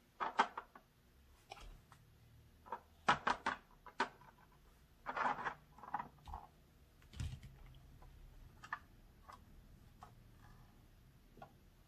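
Hard plastic toy pieces being handled: a dog house's parts and small dog figures clicking and tapping against each other in a series of light, irregular knocks, with a few in quick succession about three seconds in.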